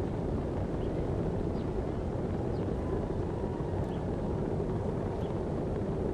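Steady wind noise and low rumble with no clear change, with a few faint short high chirps scattered through it.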